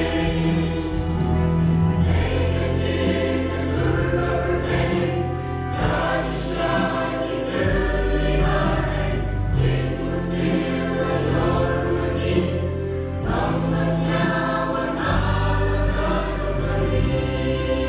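Background music: voices singing together like a choir over held bass notes that change every couple of seconds.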